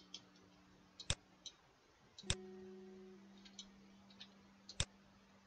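Computer mouse clicking: a few faint, scattered clicks with three sharper ones, roughly a second or more apart.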